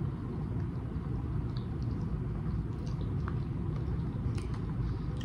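A steady low rumble of background noise under a few faint mouth clicks of sushi being chewed, and a light tap of fingers on the plastic sushi tray about four seconds in.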